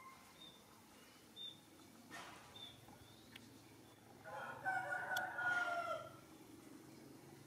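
A rooster crowing once, about two seconds long, a little past halfway through; a few short, high chirps come before it.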